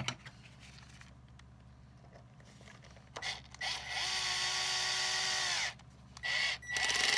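Power drill driving a screw into a shoe's heel. The motor spins up, runs steadily for about two seconds and winds down, then runs in two shorter bursts near the end.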